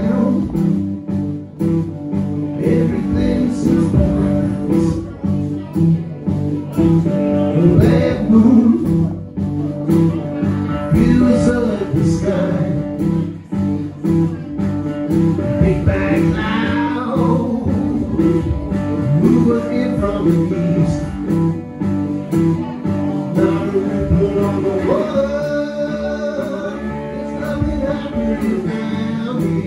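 Small blues band playing live: guitar picked over drums and cymbals, with steady held notes underneath.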